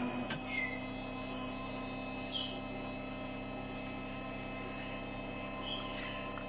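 Automatic bean-to-cup coffee machine running steadily while it dispenses coffee from its two spouts into a mug: a steady pump hum. Three short chirps sound over it, one of them falling in pitch.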